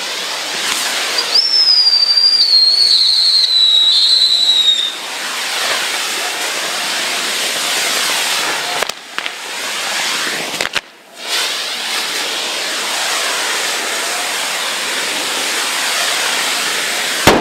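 Fireworks burning with a steady hissing, crackling spray. About a second in comes a whistle that slides down in pitch for some four seconds, and there is a sharp bang at the very end.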